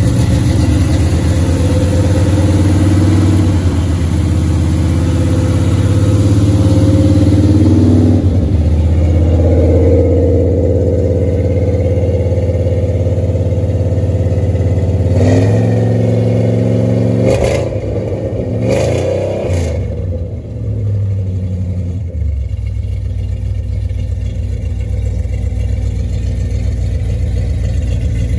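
1973 Chevrolet Corvette V8 running as it warms up after a cold start. It gets a couple of short revs about two-thirds through, then settles to a lower, steadier idle.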